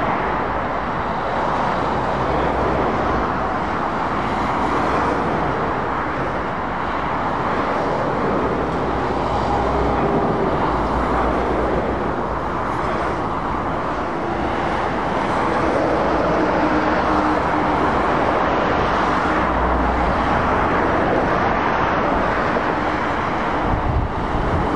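Steady motorway traffic: heavy lorries and cars passing, with tyre noise on the road surface and low diesel-engine rumble that swells several times as trucks go by.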